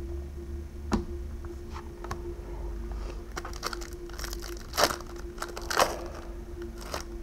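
Crinkling and crackling of plastic and foil trading-card packaging being handled, with a sharp click about a second in and two louder crackles about five and six seconds in.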